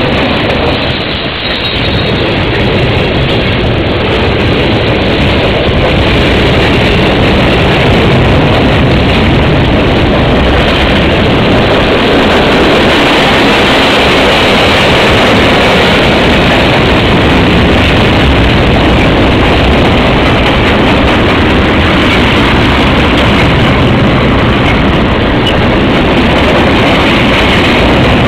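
Freight train cars rolling past close by: a loud, steady noise of steel wheels running on the rails.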